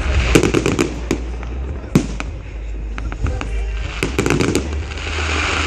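Fireworks display going off: a sharp bang about two seconds in, and rapid clusters of crackling reports about half a second in and again about four seconds in, over a steady low rumble.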